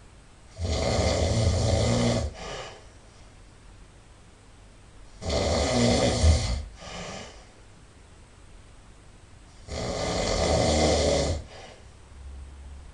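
A sleeping person snoring loudly: three long snores about four and a half seconds apart, each followed by a brief softer sound.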